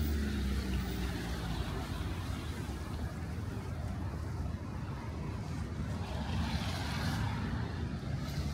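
Road traffic on a rain-wet city street: a low engine rumble, with one engine's note falling away in the first second or so, and a swell of tyre hiss on the wet road as a vehicle passes about seven seconds in.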